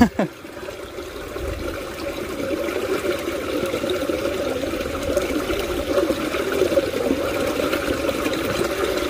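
Water trickling and pouring steadily into a small ditch.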